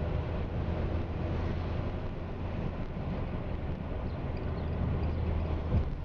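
Steady low rumble of a motor vehicle's engine and road noise, with wind on the microphone; a single short thump near the end.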